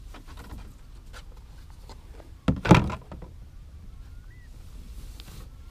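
A single dull thump lasting about half a second, around two and a half seconds in. A faint short chirp that rises then falls comes near the end.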